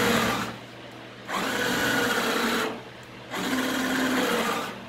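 Electric motor of a GLK motorcycle landing gear whining as it drives the side wheels, in three runs of about a second and a half each, over the low steady hum of the Harley-Davidson Road Glide's V-twin idling.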